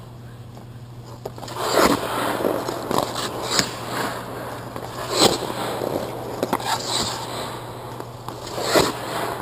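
Hockey goaltender's skate blades scraping and cutting the ice in short, sharp pushes as he moves across the crease. The scrapes start about a second and a half in and come irregularly, one every second or so, over a steady low hum.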